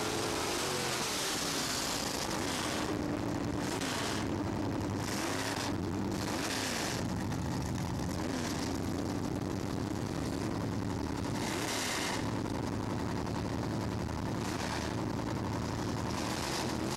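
Drag-race car engines running loud and rough, their pitch rising and falling as they rev, over a constant rushing noise.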